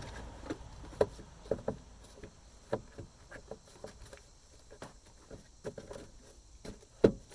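Irregular sharp plastic knocks and clicks as pieces of the truck's air cleaner housing are handled and fitted back into place, the loudest knocks about a second in and near the end.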